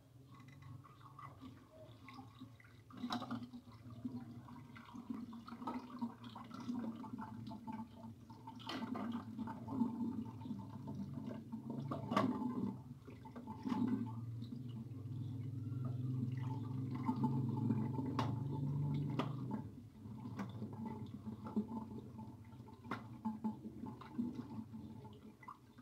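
Water splashing and sloshing in a basin as hands rub and turn over raw long-jawed mackerel to wash them, with frequent small splashes and knocks and a louder stretch of sloshing about two-thirds of the way in.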